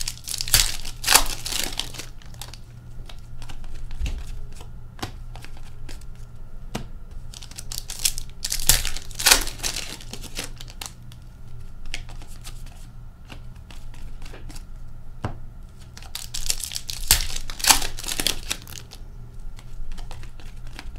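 Hockey card pack wrappers being torn open and crinkled in three loud bursts, roughly eight seconds apart, with soft clicks of cards being handled and flipped in between.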